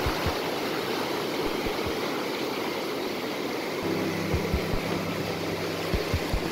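Sea surf rushing and washing over the coral reef flats and into the rock pools, a steady rush of water. Low background music comes in under it about four seconds in.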